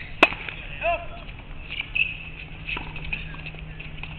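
A tennis racket strikes a ball with one sharp pop about a quarter second in. A few fainter knocks of ball on racket or court follow.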